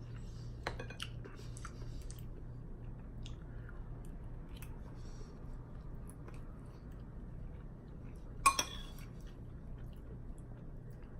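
Quiet chewing and small eating sounds from a mouthful of wonton soup, with scattered light clicks and one sharp clink of a utensil against the dish about eight and a half seconds in, over a steady low hum.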